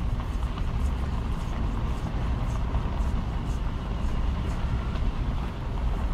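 Car rolling slowly along an unpaved dirt lane: a steady low rumble of tyres and engine, with faint ticks of grit now and then.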